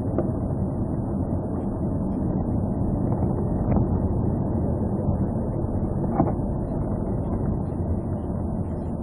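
Steady engine and road noise heard from inside the cabin of a moving police car, with a couple of faint clicks.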